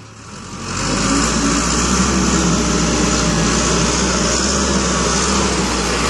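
1997 Case 580L loader backhoe's four-cylinder diesel engine running steadily. It comes back up in level during the first second.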